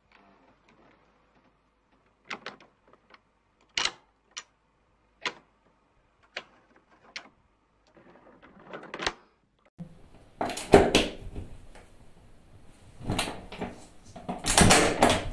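Door lock hardware worked by hand: a string of separate sharp metal clicks and clanks as latches and a lever are turned, then from about ten seconds in louder rattling and scraping of a lock and bolt, loudest near the end.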